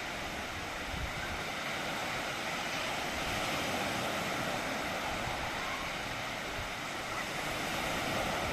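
Sea waves washing onto a sandy beach: a steady rush of surf that swells and eases slowly.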